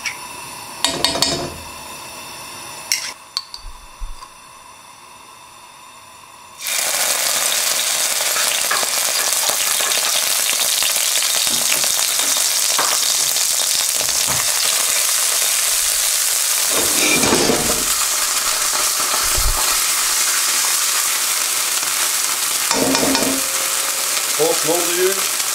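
Coconut oil going into an overheated nonstick wok. A few knocks from the spoon come first; then, about seven seconds in, a loud sizzle starts suddenly and keeps on spitting and spattering. It is the sign of a pan that is too hot.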